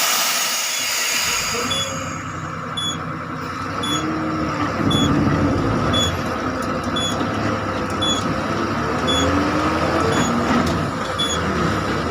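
Idling vehicles in stopped road traffic: a low engine rumble with a short electronic beep repeating about every 0.7 s, like a vehicle's reversing alarm. A loud hiss fades out over the first second or two, such as a large vehicle's air brakes releasing.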